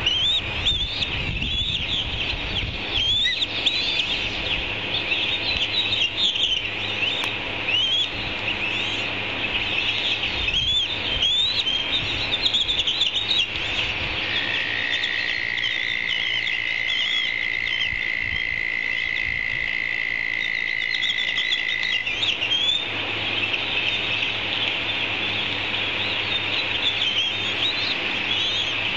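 A dense chorus of high chirping animal calls that keeps going throughout, with one steady whistle-like tone held for about eight seconds in the middle.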